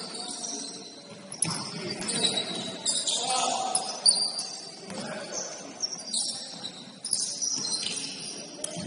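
Basketball shoes squeaking on a gym floor during play: many short, high squeaks. A sharp knock comes about four seconds in.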